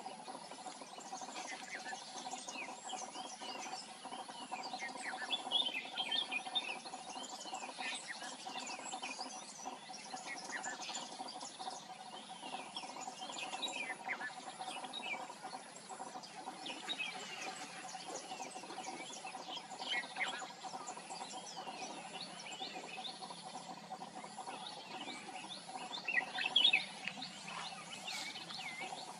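Red-whiskered bulbul calling: short chirping notes come again and again, with louder phrases about six seconds in, around twenty seconds and near the end. A steady high-pitched drone runs underneath.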